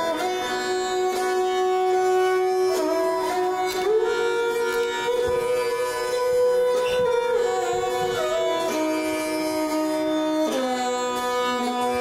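A bowed, fretted Indian string instrument of the esraj kind plays a slow melody. Its notes are held for a second or more and joined by sliding changes in pitch, over the steady drone of a tanpura.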